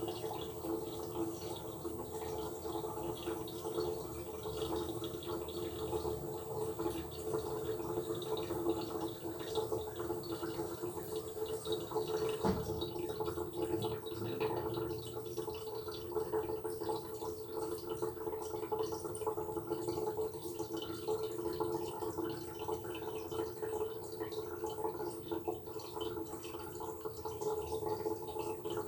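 Washbasin faucet running, a steady stream of water splashing into the sink basin, with a constant pitched tone beneath the splashing.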